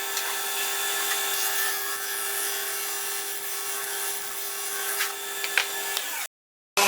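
Wood lathe running with a turning tool cutting into a spinning wooden bowl blank: a steady scraping hiss over the motor's constant hum, with a few sharp ticks. The sound drops out briefly near the end, then comes back louder.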